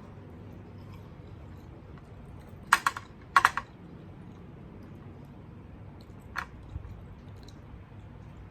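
Eating sounds: quiet chewing, with two quick clusters of sharp clicks about three seconds in and one more click a few seconds later.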